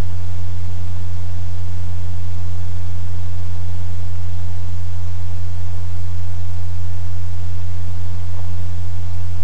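Loud, steady low hum with an even hiss over it and a faint higher steady tone: background noise of the recording, with no other sound.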